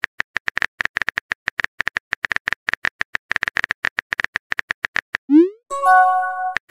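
Synthetic phone-keyboard typing clicks, many quick taps for about five seconds. A short rising whoosh follows as the message is sent, then a brief multi-tone notification chime near the end.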